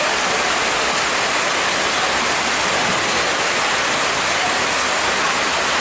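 Heavy rain pouring onto a pond's water surface, a steady even hiss.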